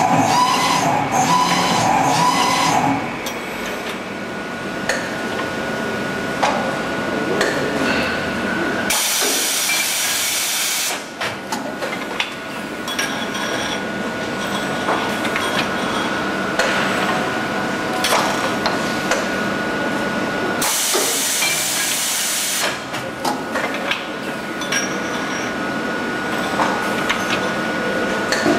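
Galdabini PAS 50 automatic straightening press and its shaft-handling line working on truck axle shafts: steady machine noise with irregular clicks and knocks, and a thin high tone that sets in about four seconds in. Two loud hissing blasts of about two seconds each break in, about nine seconds in and again about twenty-one seconds in.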